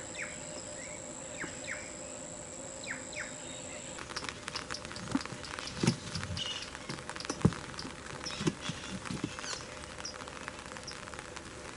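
Rain starting to fall: scattered raindrops pattering, growing thicker about four seconds in. Before that, a steady high-pitched insect call and a few short falling bird chirps; the insect call stops as the patter picks up.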